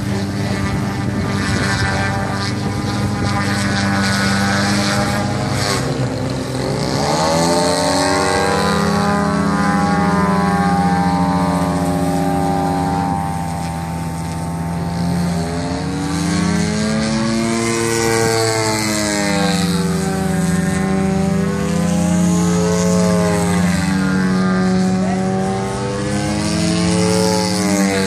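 Engine and propeller of a giant 168-inch Aero Works Carbon Cub RC airplane in flight, its pitch sweeping up and down several times as it manoeuvres overhead.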